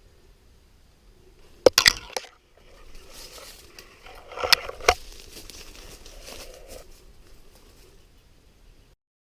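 Movement through dry brush: a cluster of sharp twig-like snaps about two seconds in, then a few seconds of crunching and rustling with two more snaps in the middle.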